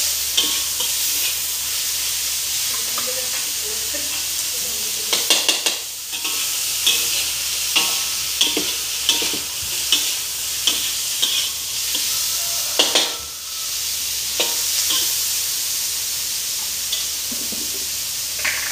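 Salted fish and onions sizzling steadily in oil in a metal wok as they are stir-fried, with a spatula scraping and clacking against the wok about once a second, mostly in the middle stretch.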